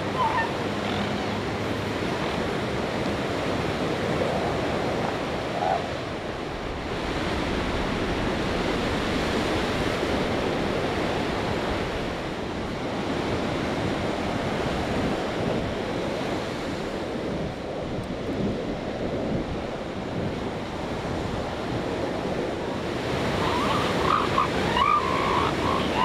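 Steady surf washing on the beach. In the last few seconds, young northern elephant seals give a run of short calls.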